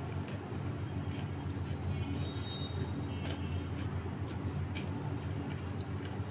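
A steady low hum throughout, with a few faint soft rustles and clicks as a fried pitha is pulled apart by hand on paper kitchen tissue.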